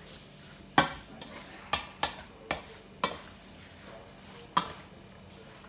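A utensil stirring ground pork and carrot filling in a stainless steel mixing bowl, knocking against the bowl in about seven sharp, irregular clinks.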